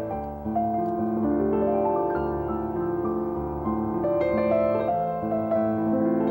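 Piano music, a slow melody over long held chords.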